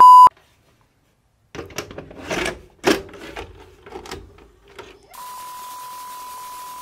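A short, loud beep, then a few seconds of irregular mechanical clicking and clattering, then a steady beep tone that starts about five seconds in.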